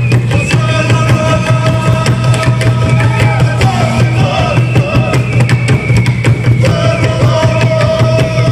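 Loud music: dense, fast drumming under a steady low drone and long held melodic notes that shift every second or two.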